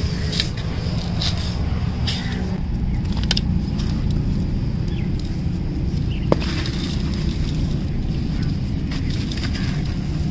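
Dry sand-cement lumps being squeezed and crumbled by hand in a steel pot, with scattered sharp crackles of grit and one sharper click about six seconds in, over a steady low rumble.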